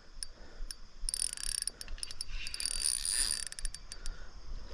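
Fishing reel drag clicking and buzzing in two bursts, with scattered clicks between, as a big smallmouth bass pulls line off light 4-pound line.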